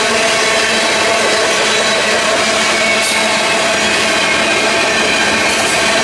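Freight train tank cars rolling past at speed: a steady, loud rush of steel wheels on the rails, with faint steady whining tones from the wheels running through it.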